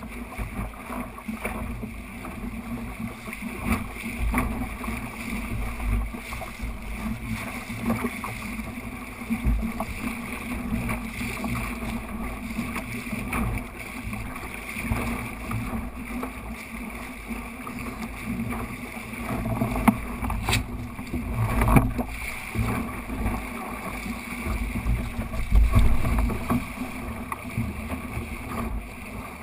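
Water rushing along the hull of a small sailing dinghy under way, with wind buffeting the microphone. Two sharp knocks come a little past two-thirds of the way through.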